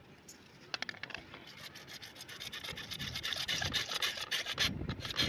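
A hand-held hacksaw blade sawing through a CPVC pipe: quick back-and-forth scraping strokes that start about a second in and grow louder.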